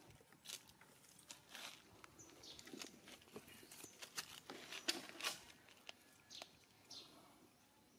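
Faint, irregular crunching and rustling of a long-tailed macaque biting and chewing a piece of yellow fruit, a cluster of sharper crunches in the middle.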